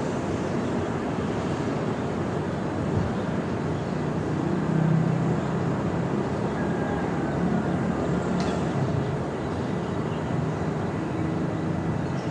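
Morning beach ambience: a steady low rumble of surf and wind with a low engine-like drone that swells about four to six seconds in. Faint bird chirps come through above it.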